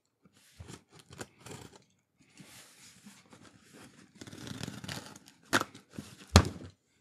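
A box cutter slicing and dragging through packing tape on a cardboard shipping box, with the tape rasping and tearing and small clicks of handling. Two sharp clicks near the end are the loudest sounds.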